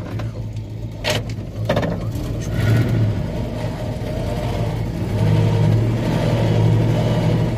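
Fuel tanker truck's engine running, heard from inside the cab: a steady low drone that swells louder twice, with a couple of sharp knocks about a second in.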